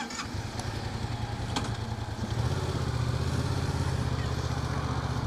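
Yamaha FZ-07's 689 cc parallel-twin engine starting and idling, with a low, steady note that steps up louder about two seconds in. A couple of faint clicks sit near the start.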